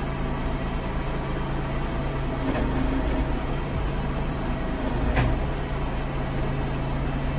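Heavy diesel truck engine idling steadily in a low hum, with one short sharp metallic knock about five seconds in.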